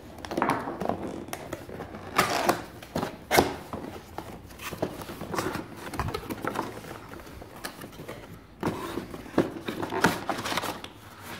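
Cardboard box being opened and handled: flaps pulled open and moulded pulp packing shifted inside, an irregular run of scrapes, rustles and knocks.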